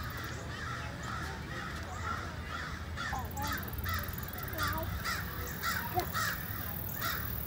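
A flock of birds giving short, harsh calls over and over, about two or three a second.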